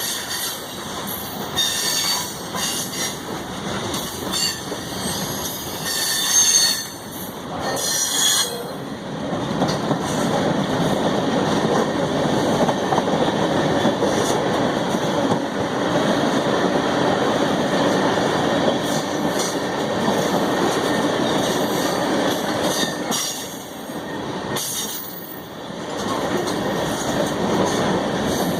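CSX freight train cars rolling past on the rails, with high-pitched wheel squeal through the first several seconds, then a steady rumble of wheels on rail that dips briefly twice.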